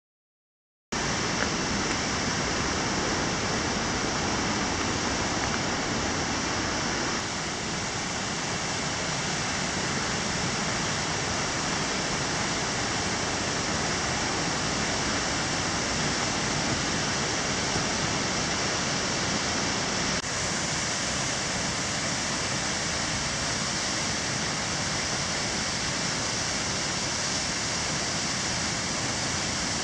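The Berglistüber waterfall's steady rush of falling water, starting about a second in out of silence.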